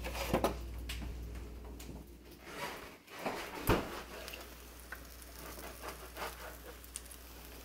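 Slices of egg- and milk-dipped bread frying in butter and coconut oil, a light sizzle, with scattered clicks of kitchen handling and one sharp knock about three and a half seconds in.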